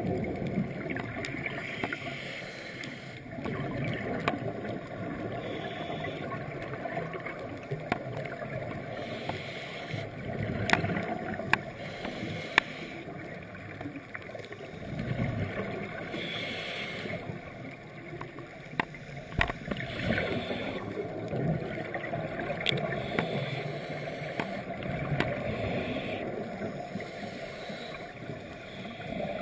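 Scuba regulator breathing underwater, with surges of exhaled bubbles gurgling every few seconds and a few sharp clicks. The sound is heard through a GoPro's underwater housing.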